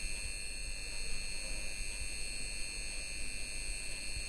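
Steady high-pitched electrical buzz made of several constant tones over a low rumble, the sound effect of a glowing light bulb in an intro.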